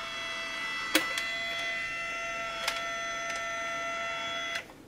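Fujifilm Instax Mini Tsum Tsum instant camera's film-eject motor running after the shutter release, a steady whine with a click about a second in and another near three seconds, stopping abruptly shortly before the end. The camera has no film in it, so the mechanism cycles without ejecting a print.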